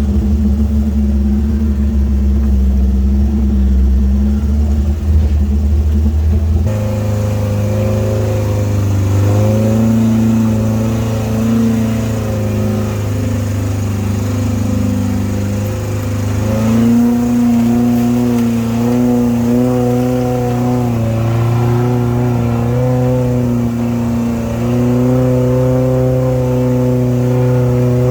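Suzuki Jimny's engine working off-road, revving and easing off so its pitch wavers up and down. The pitch shifts suddenly about seven seconds in and again past the middle.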